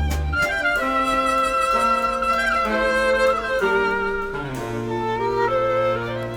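Instrumental music without singing: a melody of held notes moving in steps over a low bass line.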